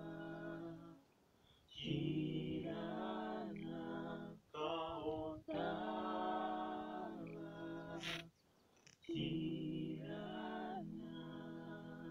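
One young man's voice recorded in several layered parts, singing a cappella harmony in held phrases, with two short breaks between phrases.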